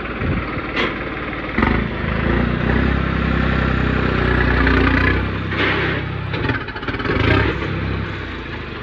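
New Holland 3630 tractor's diesel engine revving: it rises about a second and a half in, holds high for a few seconds, then drops and surges twice more near the end. A couple of sharp clacks come in the first two seconds.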